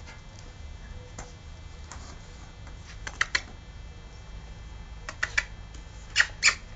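Scattered light clicks and taps from smooth fox terrier puppies at play, coming in small clusters: three about three seconds in, three more about five seconds in, and two louder ones near the end.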